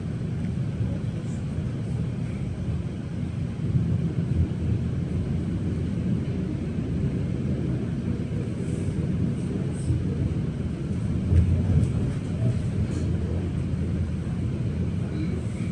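Steady low rumble of a moving suburban electric train, heard from inside the carriage, swelling for a moment about three-quarters of the way through.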